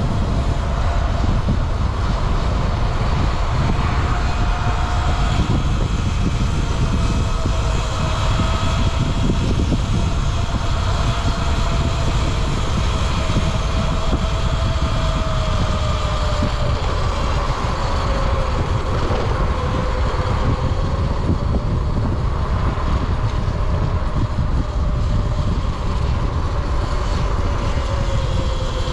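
Heavy wind and road rumble while riding, with an electric drive motor's faint whine drifting slowly up and down in pitch as the speed changes.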